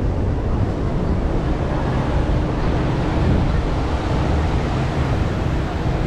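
Surf washing onto a sandy beach, mixed with wind buffeting the microphone in a low, uneven rumble.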